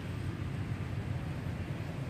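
Steady low rumbling background noise outdoors, even and unbroken.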